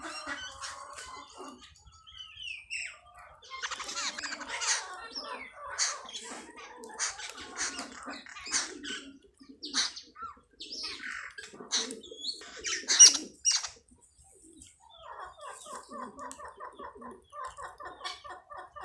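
Sparrows chirping: many short, sharp chirps, loudest about two-thirds of the way through. Near the end comes an even, rapid run of lower repeated calls, about four a second.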